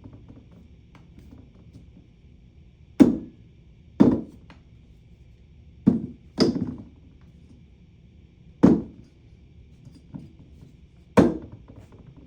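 Six sharp clacks, a second or two apart: a flashlight's magnetic mag boot snapping onto a steel surface and being pulled off again.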